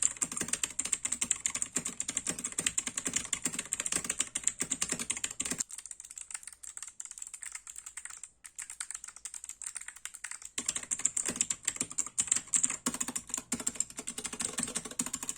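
Fast typing on a Mogee K710 mechanical keyboard with Outemu Blue clicky switches: a dense clatter of sharp, super loud clicks, with a brief break about eight seconds in. The empty plastic case with no dampening adds to how loud the clicks are.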